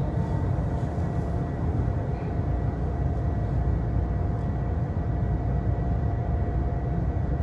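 Wall-mounted electric fan running, its airflow buffeting the microphone as a steady low rumble, with a faint steady hum over it.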